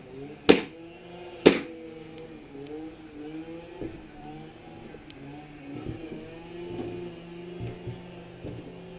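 Two loud, sharp airsoft gun shots about a second apart, over a steady low drone whose pitch slowly wavers.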